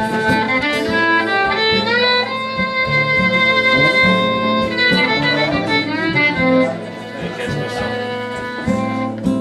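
Live instrumental music: a melody instrument plays long held notes, sliding up into a long note about two seconds in, over lower accompanying notes.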